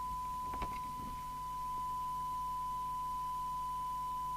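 Steady single-pitched test tone from the Harvard H407 CB receiver's audio output. This is the signal generator's modulation tone, demodulated while the set is being aligned. A few light clicks sound about half a second in.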